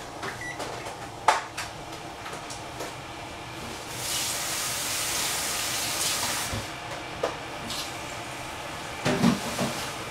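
Kitchen handling sounds: sharp clinks and knocks of crockery or cupboard doors, a rushing hiss for about two and a half seconds midway, and a short cluster of clatters near the end, over a steady low background.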